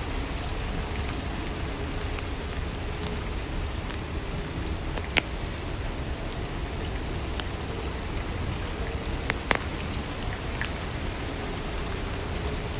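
Steady rainfall, with scattered sharp ticks of single drops landing.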